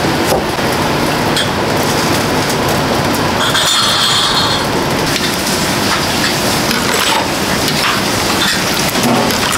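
Restaurant kitchen at work: a steady rushing hiss, such as water or frying, with scattered clinks of glass and dishes. A brief high-pitched hiss stands out about four seconds in.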